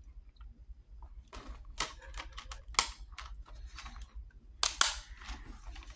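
Plastic clicks and clacks of a multi-disc DVD case and its discs being handled, the discs having come loose from their hubs. The sharpest clacks come near three seconds in and as a close pair near five seconds.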